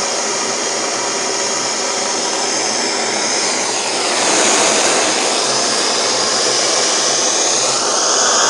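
Gas burner flame burning with a loud, steady rushing hiss, heating the hot end of a small alpha-type Stirling engine; the tone of the rush shifts a little about halfway through.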